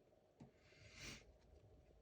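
Near silence: room tone with a faint click and a soft, brief rustle of small parts being handled.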